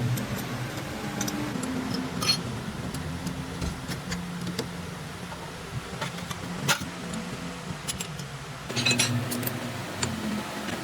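Metal lathe running with a steady motor hum, its cutter working grooves into a steel rod, with scattered sharp metallic clicks and ticks throughout.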